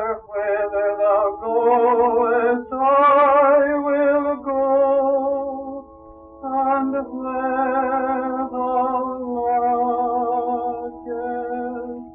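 Male vocalist singing a slow sacred song with wide vibrato, a setting of words from the Book of Ruth, in phrases over steady held accompaniment chords. It is an old 1954 recording, and the singing dips briefly between phrases, about six seconds in.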